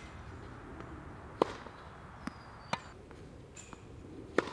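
Tennis rally on a hard court: sharp pops of the ball coming off racquet strings and bouncing on the court, about five in all, the loudest about a second and a half in and again just before the end.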